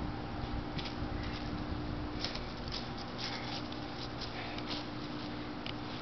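Irregular short rustles and crunches of dry leaves underfoot and under a handled fish, over a steady low hum.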